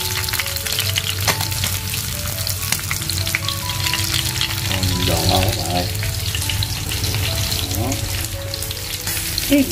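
Whole climbing perch deep-frying in a pan of hot oil, a steady crackle and sizzle. The fish are cooked through and crisp.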